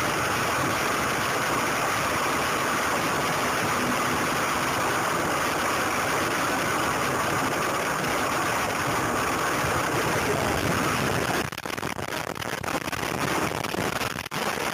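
Steady road and engine noise inside a moving car, picked up by a dashcam. About eleven seconds in it breaks off into a jumble of knocks and clatters as the car crashes and the camera is knocked loose.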